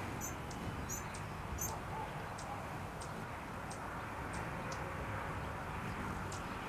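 High, sharp chip calls from hummingbirds, about ten short notes, roughly one every half-second to second, over a steady low outdoor hiss.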